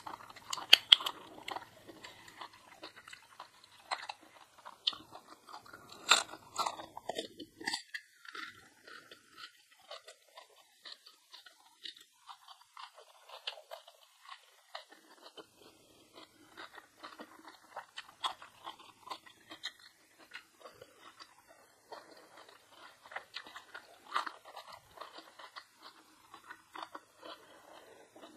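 Close-miked eating sounds: crisp crunching bites of food and chewing, with the loudest crunches about a second in and again around six seconds in, then softer, irregular chewing.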